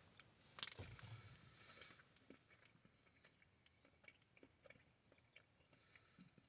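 Faint chewing of gummy fruit snacks, with a sharp click about half a second in and soft mouth noises that thin out to scattered small ticks.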